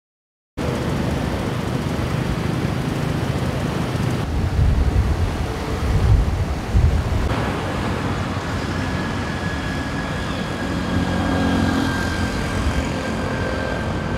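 Street traffic noise: vehicles running along a road, with a low rumble that swells midway, and a faint steady high tone joining about halfway through.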